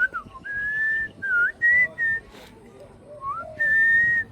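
Pet parrot whistling a run of clear notes, some sliding up or down in pitch, with long held notes about half a second in and again near the end.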